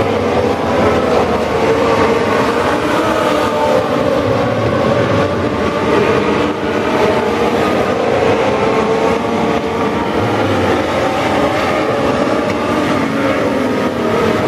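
A pack of Legends race cars running flat out on a dirt oval, their Yamaha four-cylinder motorcycle engines revving high together in a steady, dense drone, the pitches shifting a little as the cars pass.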